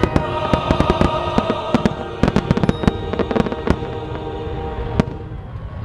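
Aerial fireworks shells bursting in a rapid, dense string of bangs during the grand finale, thinning out after about three and a half seconds to a single bang near the end. Music plays steadily underneath.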